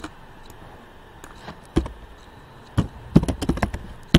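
Typing on a computer keyboard. There is one click a little under two seconds in, then a fast run of keystrokes near the end as a word is typed into a text field.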